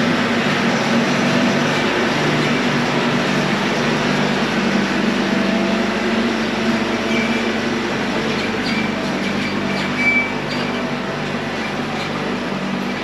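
Diesel engine of a Bobcat T66 compact track loader running steadily at a constant pitch.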